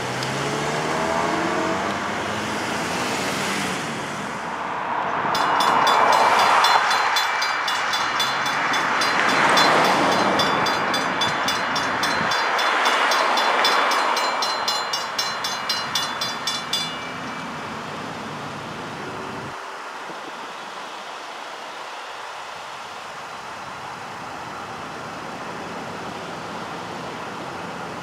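Railroad crossing's Safetran mechanical bells ringing in rapid strokes while the gates come down, signalling an approaching train; the ringing stops about seventeen seconds in. Cars pass through the crossing over the first half.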